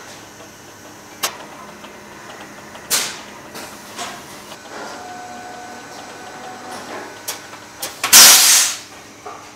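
Textile weaving machinery running with a low steady hum and scattered mechanical clicks and knocks. About eight seconds in comes a loud rushing hiss lasting under a second.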